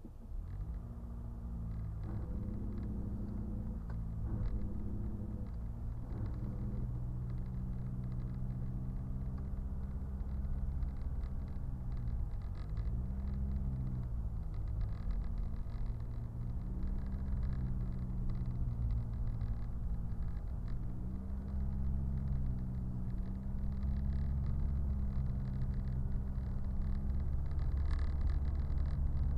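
Car engine and low road rumble heard from inside the cabin. The engine note wavers with speed, dips about twelve seconds in and picks up again, and the sound grows slowly louder toward the end.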